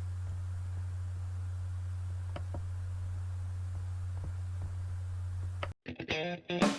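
A steady low hum with a few faint, light clicks of small parts being handled. Near the end the hum cuts off and guitar music starts.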